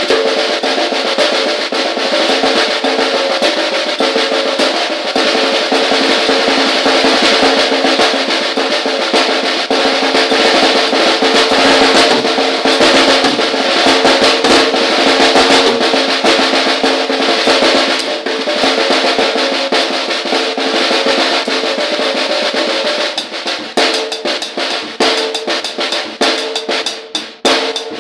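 Drum kit playing a long, dense snare drum roll that breaks into separate, spaced hits over the last few seconds.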